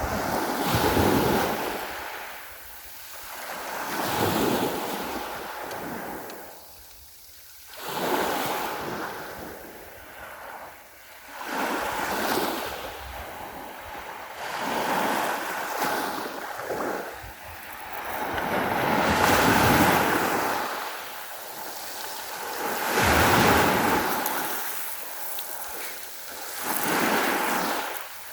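Sea waves washing onto the shore, each one swelling up and falling away every few seconds, with some wind on the microphone.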